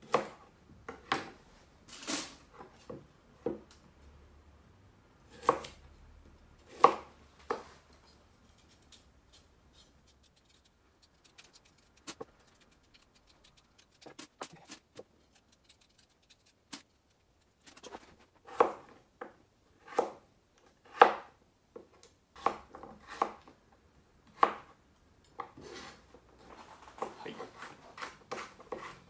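Kitchen knife mincing a carrot on a cutting board: irregular knocks of the blade on the board, a long pause with only faint ticks midway, then quicker strokes near the end.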